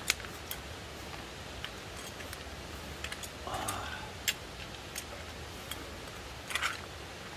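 Scattered light clicks and clinks of a ladle and chopsticks against the cauldron and cups as seafood ramen is served and eaten, with a couple of short noodle slurps, over a steady low hum.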